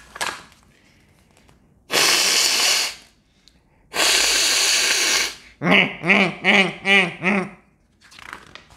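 A page of a picture book turning, then a person hissing "Hsssss" aloud twice, each hiss about a second long. These are followed by a quick run of five or six short voiced sounds that rise and fall in pitch.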